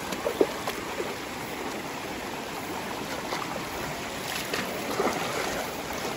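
Shallow stream running over rocks, a steady rush of water, with a few short splashes as a dog wades into it, around half a second in and again around four to five seconds in.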